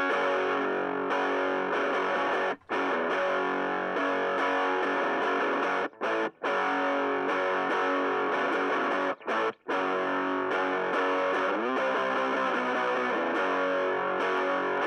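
Electric guitar played through a Marshall MS-4 one-watt mini stack amplifier with its gain turned all the way up: heavily distorted, sustained chords and notes, with a few short stops between phrases and a pitch slide near the end.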